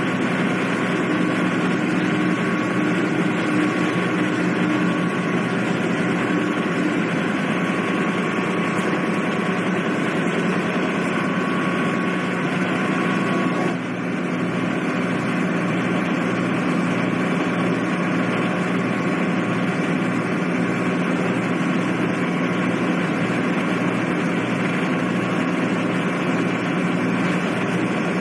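Car ferry's diesel engines running steadily at the quay, a loud steady drone with a low hum. About halfway through, a regular low pulsing throb sets in under the drone.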